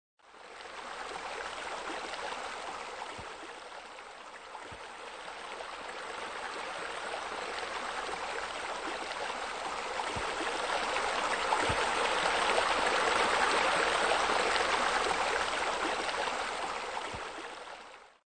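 Running water splashing steadily, fading in at the start, louder through the middle and fading out near the end.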